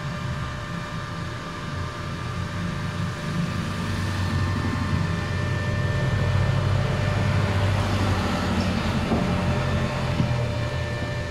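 Ingco inverter welding machine powered up and running, its cooling fan whirring steadily with a low hum and a thin electrical whine.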